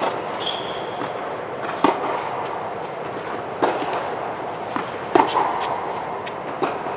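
Tennis ball struck by racquets and bouncing on a hard court during a baseline rally: four sharp pops, about one every one and a half to two seconds, with fainter bounces between, over a steady background noise. A short high squeak comes about half a second in.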